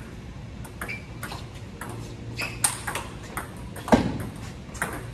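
Table tennis rally: the celluloid-type ball clicking off the paddles and bouncing on the table in quick, uneven succession, with the loudest click about four seconds in.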